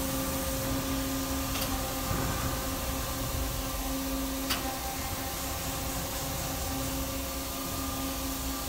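Steady hum of a powered-up but idle CNC turn-mill lathe, a low drone with a few steady tones, with a faint click about a second and a half in and another about four and a half seconds in.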